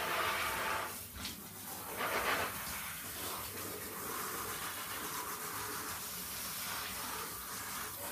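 Water spraying from a handheld shower head onto soaked jeans and high-top sneakers, a steady hiss of spray that is louder in the first second and briefly again about two seconds in.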